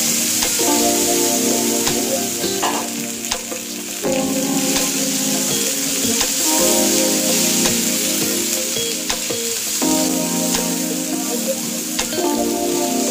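Onion and capsicum pieces coated in masala sizzling as they fry in oil on a nonstick grill pan, with the odd tick and scrape of a spatula stirring them.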